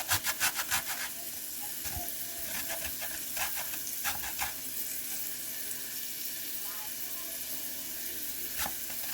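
Onions and meat sizzling steadily in a frying pan. Through the first second there is a quick run of rhythmic scraping strokes, about five a second, as frozen ginger is grated, with a few single scrapes later on.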